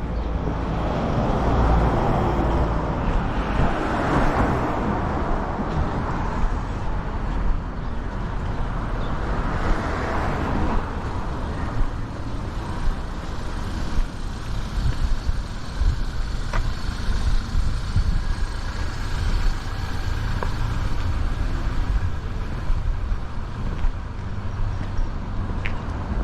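Vehicles passing along a street, their noise swelling and fading over the first few seconds and again around ten seconds in, over a steady low rumble of wind buffeting the microphone.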